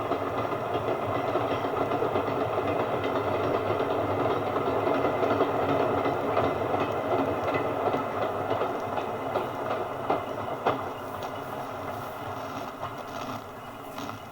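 A train running along the track, its sound slowly fading as it moves away, with a few sharp clicks from the wheels over rail joints about ten seconds in.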